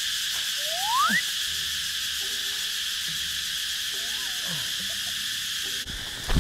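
Insects, crickets or cicadas, chirring in a steady high drone, with a single short rising whistle about a second in. Near the end the sound changes to a rustling noise.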